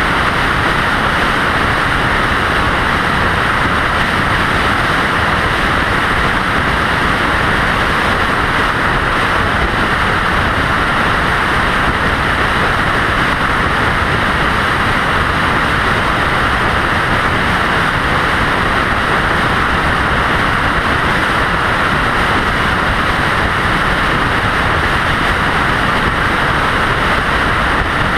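Steady road and wind noise of a car travelling at highway speed: an even, unchanging noise with no distinct engine note or other events standing out.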